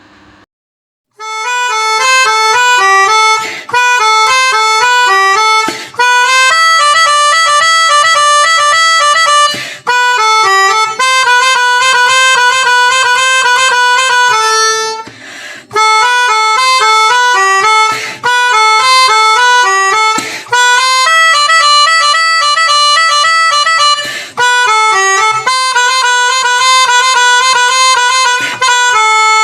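Background music: a melody on a reedy wind instrument, played in short phrases with brief breaks. It starts about a second in, after a moment of silence.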